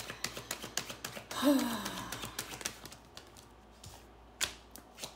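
A deck of oracle cards being shuffled by hand: a quick run of light card clicks that thins out about three seconds in. A brief falling vocal sound comes about a second and a half in, and a single soft rustle near the end.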